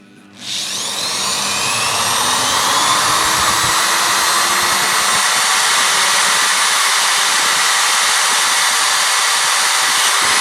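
Electric drill with a 6.1 mm bit spinning up about half a second in and running steadily while boring a hole.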